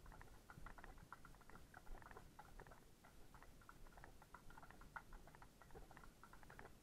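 Faint hoofbeats of several horses walking, a quick irregular patter of many short clops.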